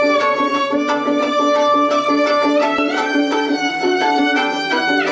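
Two violins playing a folk-style tune. One bows a melody of held notes while the other, held upright like a small guitar, is plucked and strummed in a steady, even rhythm underneath.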